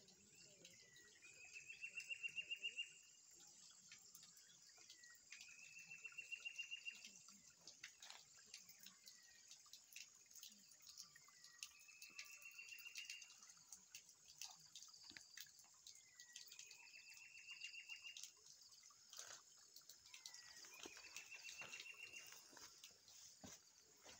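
An animal call repeated about five times, each a short downward slur followed by a quick trill of about a second, coming every four to five seconds. The first two are the loudest. Beneath them runs a faint steady hiss with scattered small ticks.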